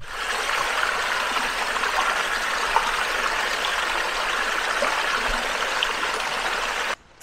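A small woodland brook running steadily over tree roots and stones, an even rushing of water that cuts off abruptly shortly before the end.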